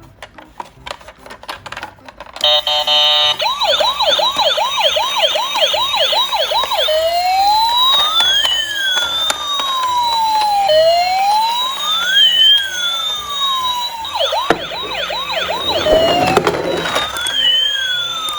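Toy emergency vehicles' electronic sirens. A few faint clicks, then about two seconds in a fast yelp of roughly two sweeps a second, changing to a slow rising-and-falling wail with two siren tones overlapping, and a fast yelp joins again near the end.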